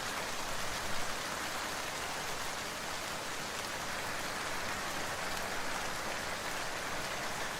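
Steady, even hiss like rain falling on a surface, unchanging throughout.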